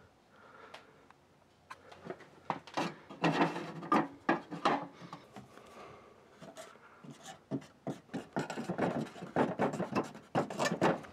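Irregular scraping, rubbing and knocking of hard objects being handled and set down on a work surface, a run of uneven strokes with short pauses.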